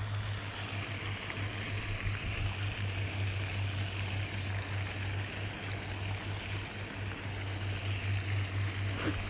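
Steady low hum under an even hiss of splashing water, as from a pond fountain aerator running.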